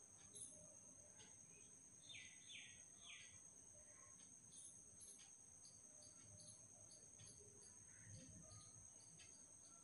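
Faint background sound: a steady high-pitched insect trill, like crickets, with scattered short bird-like chirps, three quick ones about two seconds in.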